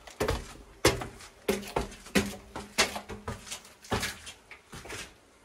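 Footsteps of people in sneakers climbing narrow stone stairs, a gritty step about every two-thirds of a second, in a tight stone stairwell.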